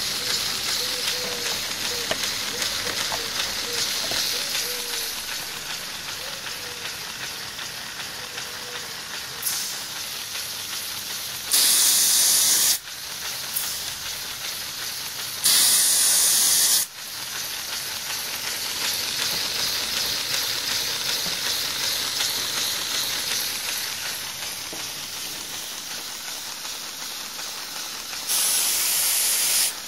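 LEGO pneumatic V8 engine running on compressed air, with a steady hiss of exhausting air. Three louder blasts of hissing air, each a second or two long, come about twelve, sixteen and twenty-nine seconds in.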